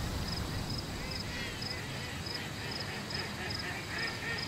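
Crickets chirping in a steady rhythm, about two high chirps a second. From about a second in, a faint run of rapid repeated calls joins them and grows toward the end.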